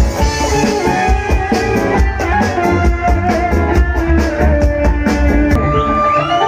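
Live band playing an instrumental passage through the PA, a drum kit beating steadily under guitar. The drums stop about a second before the end, leaving one held note.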